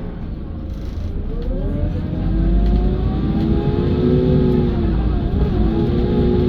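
IIA Menarinibus Citymood 12 CNG city bus pulling away: its drive note rises in pitch and loudness over the first two or three seconds, then holds steady, with a brief dip in pitch a little past the middle.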